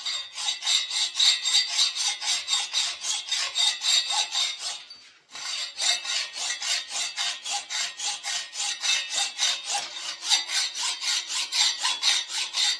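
Hacksaw cutting through a Husqvarna 1100 chainsaw cylinder to take its top off, in steady back-and-forth strokes of about four a second. There is a brief pause about five seconds in before the sawing resumes.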